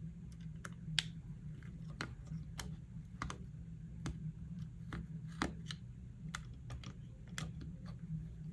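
Small screwdriver turning a screw in the plastic body of an HO-scale model steam locomotive, fastening the shell to the chassis: irregular light clicks and ticks of the tip and plastic parts, a few each second.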